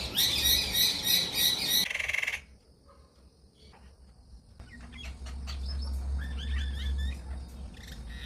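A flock of birds calling loudly in a dense chorus of harsh chirps and squawks, which stops abruptly about two seconds in. After a short lull, fainter scattered chirps and twitters start up again.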